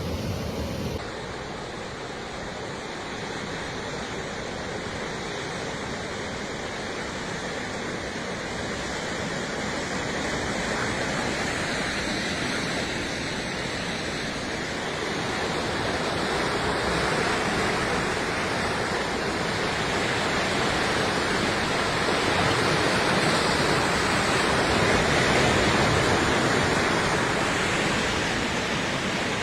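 Rushing water of a river waterfall, a steady rush of falling water that grows louder in the second half.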